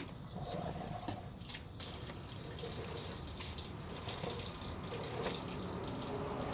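Transmission fluid trickling into a BMW 435i's automatic transmission through its fill hole, a steady liquid sound with a few faint clicks.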